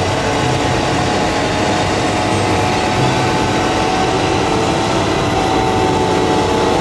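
Wheel loader's diesel engine running steadily under load as the bucket pushes a heap of wet soil, with a faint steady whine over it.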